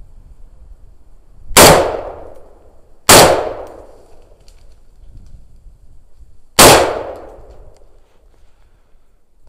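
Three shots from a scoped hunting rifle fired at a wild boar: two about a second and a half apart, then a third some three and a half seconds later, each ringing out in a trailing echo.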